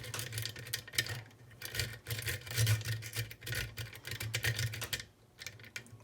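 A metal lock pick scraping and clicking against the pins inside an ERA pin-tumbler rim cylinder, with rapid, irregular clicks that thin out about five seconds in, as the lock is worked under counterclockwise tension.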